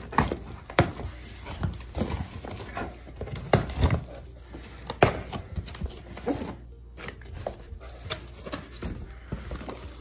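A cardboard box being opened and handled: irregular knocks, taps and scrapes of the lid and flaps as the contents are reached into.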